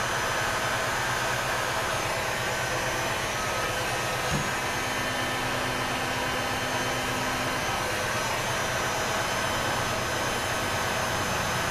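Electric heat gun blowing steadily, warming the solenoid connectors on a 5L40E transmission valve body, with a single small click about four seconds in.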